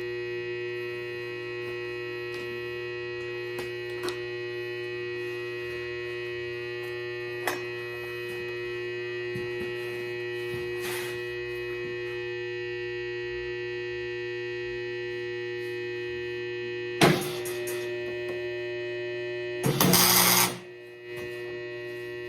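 Steady electrical hum of shop welding equipment, with a sharp knock about three quarters of the way through and then a loud burst of arc welding lasting about a second near the end, a tack weld on a jigged steel sub-assembly.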